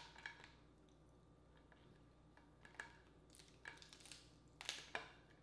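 Dungeness crab shell cracking and snapping as sauce-covered legs are pulled apart by hand, with wet squishing. A few short sharp cracks, the loudest two close together near the end.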